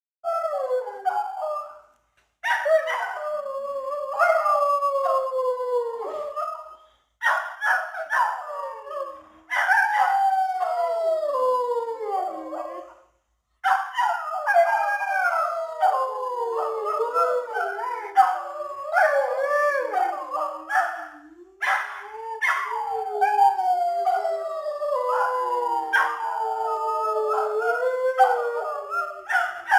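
Husky howling in long, gliding calls that mostly fall in pitch, in several bouts separated by short pauses. In the second half the calls overlap and waver.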